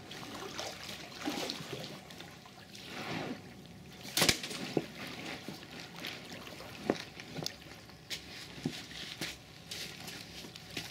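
Lake water lapping and sloshing at a shingle shore, with scattered sharp knocks and clatters; the loudest knock comes about four seconds in.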